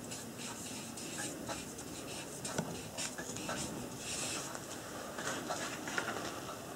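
Felt-tip marker writing on a paper chart: a run of short, irregular scratchy strokes as letters are drawn.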